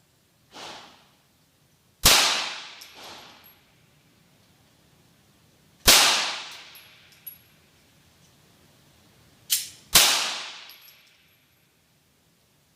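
Handgun shots fired slowly, three loud ones about four seconds apart, each with a long echoing tail. A fainter shot comes just before the last of them.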